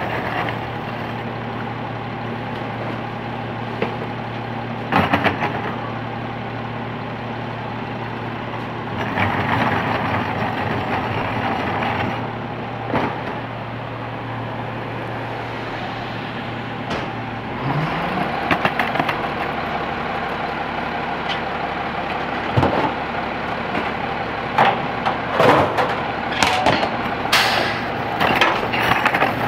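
Rear-loading garbage truck's diesel engine idling steadily, then revving up about two-thirds of the way through. Near the end, trash cans bang and clatter against the truck's hopper as they are dumped.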